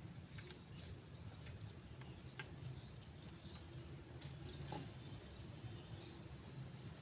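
Faint background: a steady low rumble with scattered light clicks and taps, and a few brief high chirps.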